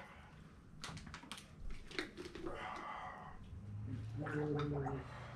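A few light clicks, then a man gargling water with his head tipped back for about a second and a half near the end.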